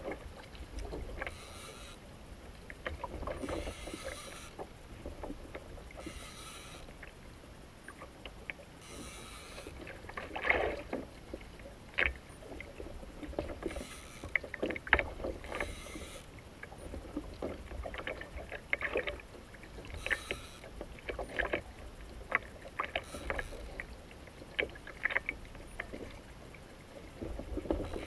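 Water slapping and splashing against a kayak hull in wind, with short bursts of splash every few seconds. Scattered clicks and knocks come from a fishing reel being cranked and the rod being worked while a fish is fought.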